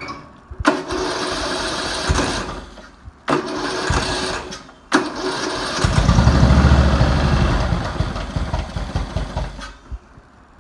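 Rebuilt 12.5 hp flathead engine of a Murray riding mower being turned over by its starter in three bursts. On the third it fires and runs for a few seconds, then dies away because it won't hold the low idle setting. It spins over easily, which the owner takes for lower compression than before.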